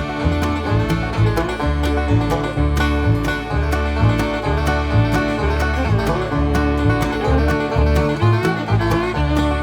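Background music: an upbeat bluegrass-style tune with banjo and guitar picking over a steady bass beat.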